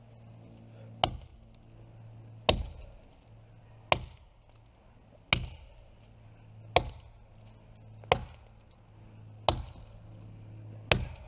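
Double-bit cruiser axe chopping into wood: eight evenly paced blows, about one every second and a half. A steady low hum runs underneath.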